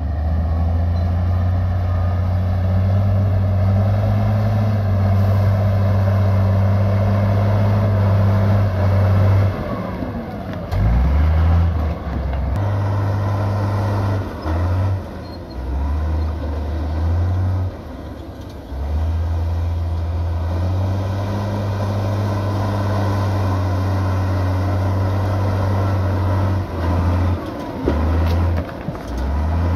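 Heavy diesel engine of earthmoving machinery running under load. Its pitch and loudness drop and change in steps several times between about 10 and 18 seconds in and again near the end.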